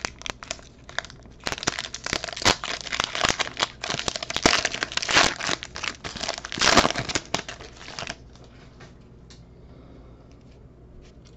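Foil wrapper of a Panini Prizm baseball card pack crinkling and tearing as it is ripped open and the cards are pulled out, with many sharp crackles. The crinkling stops about eight seconds in.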